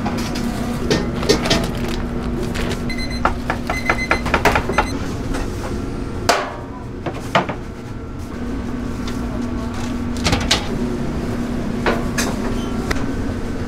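Food-stall kitchen noise: a steady low hum under scattered knocks and clatter. There is a quick run of clicks a few seconds in, and two sharper knocks around the middle.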